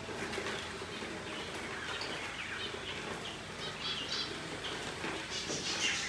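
Small aviary birds giving scattered short chirps, with wing flaps as doves are let out of a wooden carrier cage.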